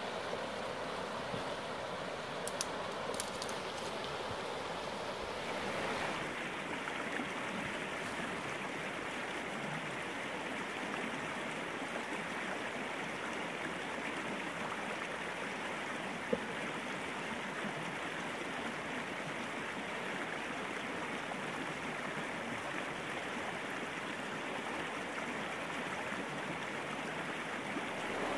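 A shallow, rocky river running over stones: a steady rush of water that changes tone about six seconds in. A few faint clicks come near the start and a single sharp tick comes about halfway.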